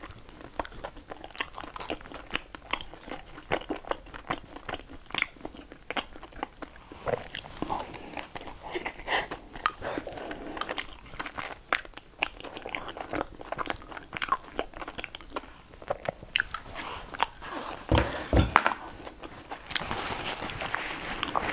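Close-miked eating: a person chewing and biting food from a bowl, with many short irregular mouth clicks. Near the end come two low knocks, then a tissue rustling.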